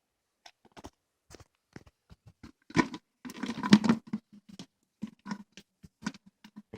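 Small plastic toy figures and their packaging being handled: scattered clicks and taps, with a burst of rustling about three seconds in.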